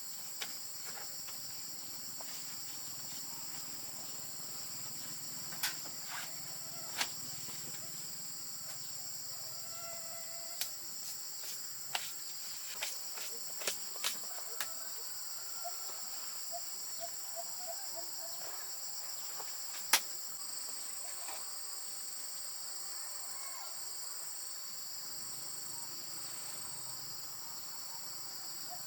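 Steady high-pitched insect chorus, broken by scattered sharp clicks and knocks, the loudest about two-thirds of the way in.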